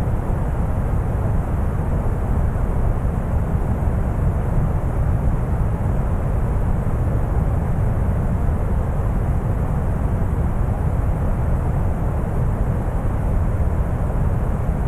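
Deep brown noise: a steady, unchanging rumbling hiss, weighted heavily toward the low end and thinning out in the highs.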